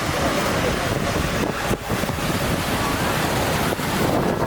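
Steady wind buffeting the microphone over the wash of sea water along a seafront.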